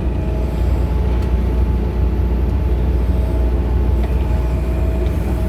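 John Deere excavator's diesel engine running with a steady low drone, heard from inside the cab.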